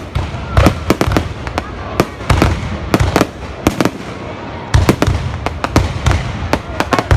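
Fireworks display: an irregular run of sharp bangs, several a second at times, over a continuous low background rumble.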